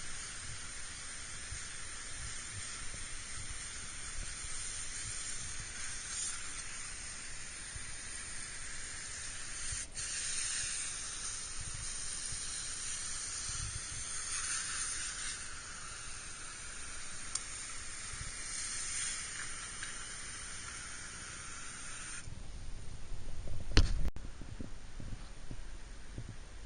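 A hand sprayer's water jet hissing steadily as it rinses the cleaning chemical off an air conditioner's coil fins. It cuts off suddenly near the end, and a single knock follows shortly after.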